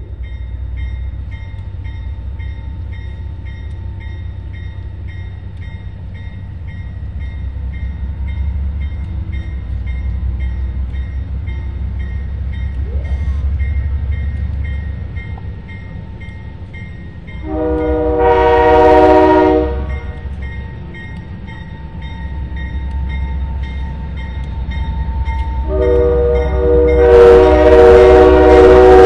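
Diesel passenger train approaching with a steady low engine rumble. Its locomotive horn sounds one blast of about two seconds a little past the middle, then a longer, louder blast starts near the end as the train comes by.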